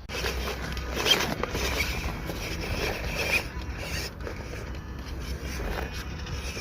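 A small RC crawler truck scrabbling over loose stone and gravel, its tyres crunching and scraping continuously with small irregular clicks.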